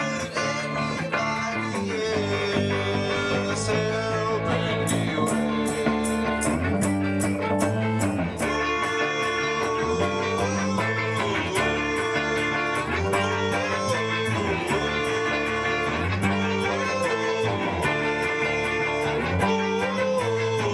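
A rock band playing: electric guitar and bass guitar with a male voice singing. A steady beat comes in about four and a half seconds in.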